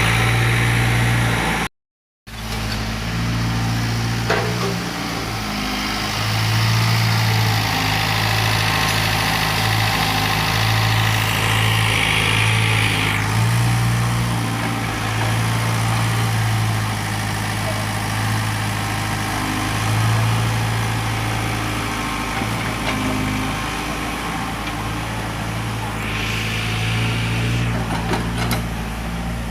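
Doosan 55W excavator's diesel engine running steadily, its note swelling and easing as the machine works. The sound cuts out completely for a moment about two seconds in, and a few faint knocks come through.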